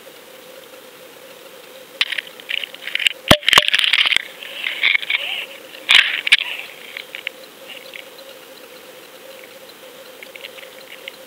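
Sound picked up by a GoFish underwater camera on a fishing rig: a steady faint hum. About two seconds in, a few seconds of crackling, rushing water noise with several sharp knocks on the housing as the rig tumbles. It settles back to the hum after about seven seconds.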